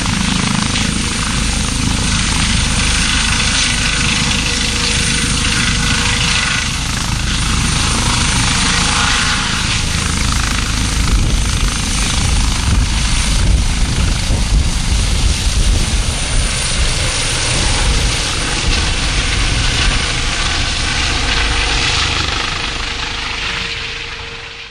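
Medical helicopter's rotor and turbine running loud and steady at close range, fading out near the end.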